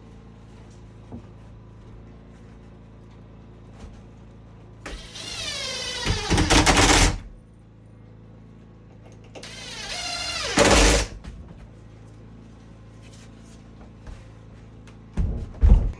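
A handheld power drill running in two short bursts, each building in loudness to a loud finish, as if driving screws. A few sharp knocks come near the end.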